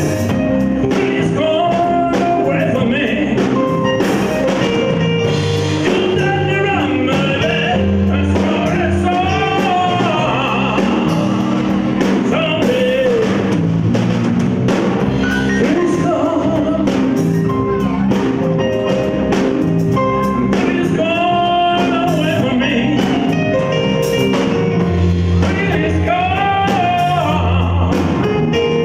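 Live band playing a song: a man singing into a microphone over a drum kit, electric guitar and electric bass.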